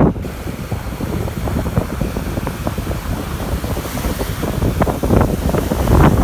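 Small waves breaking and washing up over sand at the water's edge, with wind buffeting the microphone. A wave comes in louder near the end.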